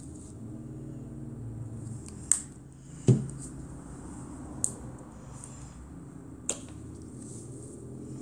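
Plastic squeeze bottles of craft paint being handled: their flip-top caps click open and shut, four sharp clicks in all. The loudest, about three seconds in, has a low knock, as a bottle is set down on the table.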